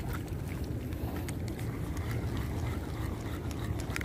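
Low, uneven rumble of wind buffeting the microphone, with a few faint ticks scattered through it.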